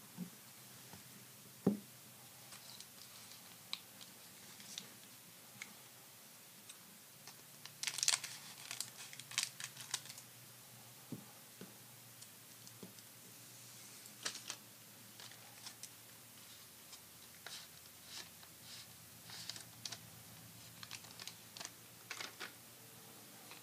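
Trading cards handled by hand: soft card clicks and rustles as a stack is flicked and squared, with a louder crackle of a 1991-92 Upper Deck foil pack wrapper being torn open about eight to ten seconds in, then more light shuffling of the fresh cards.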